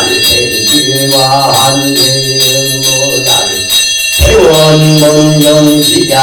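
A Korean Buddhist monk chanting an invocation in long, held melodic phrases, with a short break just after four seconds. Over the voice, a shaken hand bell (yoryeong) rings steadily.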